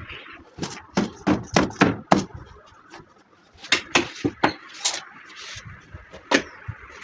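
Repeated sharp knocks from work on a sofa frame: a run of about five quick strikes about a second in, another cluster around four to five seconds in, and a single strike near the end.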